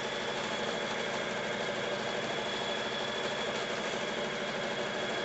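Brother BB370 sewing machine running steadily while free-motion quilting on a quilting frame with a hopping foot: a continuous motor hum and needle clatter with a thin high whine.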